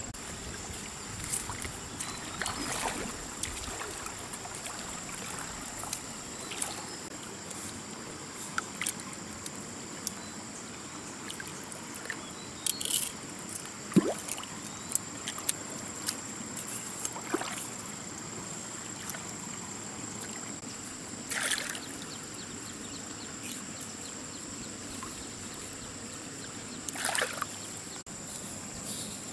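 Water trickling and sloshing, with scattered short splashes and knocks, over a steady high-pitched hum.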